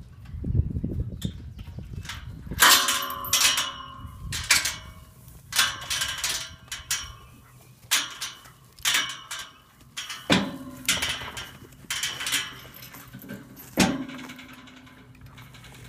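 Metal tube gate clanging and rattling as it is handled, a dozen or so sharp metallic knocks that each ring on briefly, coming roughly once a second before stopping near the end.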